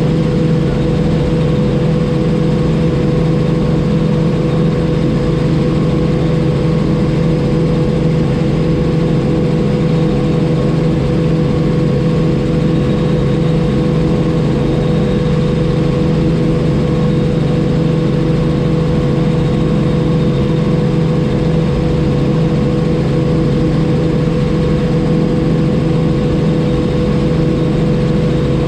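Robinson R44 helicopter in steady flight: the six-cylinder Lycoming piston engine and rotors make a loud, even drone with a steady hum, unchanging throughout.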